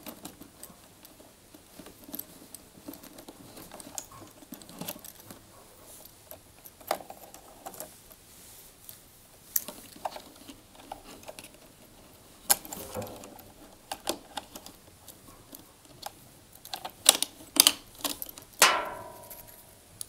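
Light clicks, rattles and rustles of electrical wires and plastic connectors being handled and pulled free inside the back of a tumble dryer, with a louder scrape near the end.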